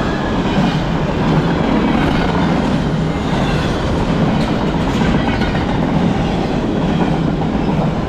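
Double-stack intermodal well cars of a freight train rolling past close by: a steady rumble of steel wheels on the rails.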